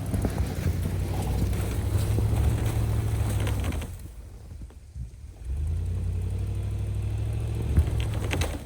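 2006 Toyota 4Runner's engine pulling under load in low range, in two steady pushes with a quieter lull about four seconds in.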